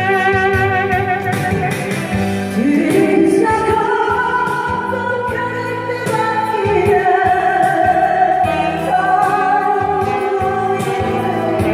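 A woman singing a slow Korean ballad over backing music, with long held notes that waver in pitch.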